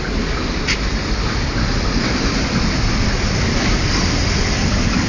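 Salvador suburban commuter train running: a steady rumble and rattle, with one brief sharp click under a second in.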